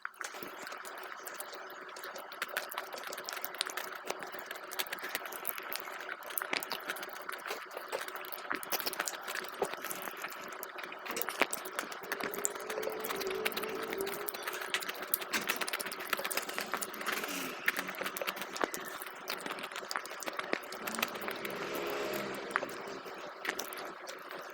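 Close-miked eating of rice congee: a steady stream of small wet clicks from chewing and mouth sounds, over a faint steady hum.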